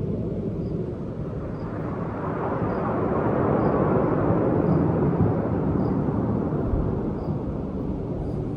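A deep, noisy rumble of something passing by, swelling to a peak about four seconds in and then fading.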